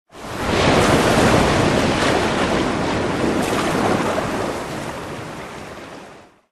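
Sea surf rushing in a steady wash of noise that fades in at the start and fades out gradually toward the end.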